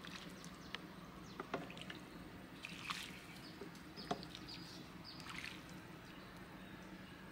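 Faint drips and small splashes of a ladle moving in a bowl of vegetable soup, with a few soft clicks and short high chirps over a low hum.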